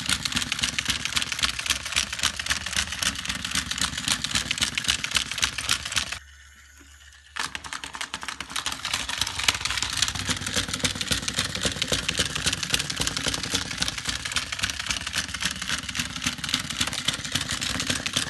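Chubby Puppies Dalmatian toy waddling: its small battery-driven mechanism whirs with rapid, even plastic clicking. It stops for about a second around a third of the way in, then starts up again.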